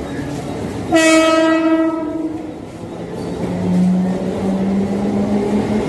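Mumbai suburban electric local train (EMU) approaching the platform with a continuous rumble, sounding one bright horn blast about a second in that lasts about a second and a half. A lower steady tone, rising slightly, holds from about halfway to the end.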